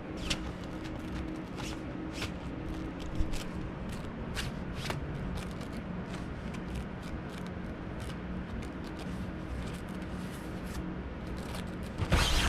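Scratchy rustling and small clicks of a pet fox moving on bedding and nylon tent fabric, scattered over a steady low hum, with a louder burst of rustling near the end.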